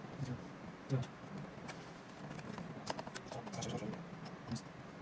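Scattered clicks and light knocks of hands handling the plastic parts and a small circuit board's wire connector inside an opened projector.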